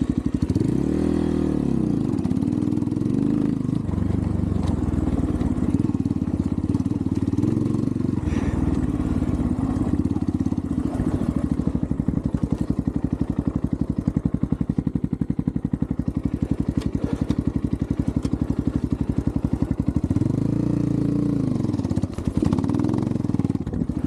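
Xpro Templar X 250cc dirt bike's single-cylinder four-stroke engine running at low revs while being ridden, its pitch rising and falling briefly about a second in and again near the end.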